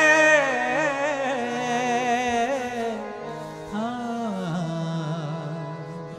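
Sikh kirtan: a man's voice holding a long, wavering sung note that ends about half a second in, then softer melodic phrases over steady held accompaniment tones, growing gradually quieter.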